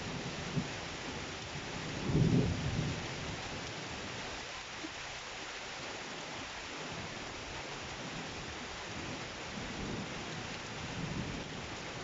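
Steady rain falling during a thunderstorm, with a burst of thunder rumbling about two seconds in and fainter rumbles near the end.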